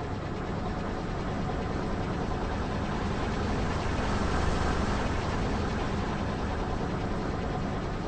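Car engine running steadily at low speed, swelling slightly around the middle, with no crunching impacts.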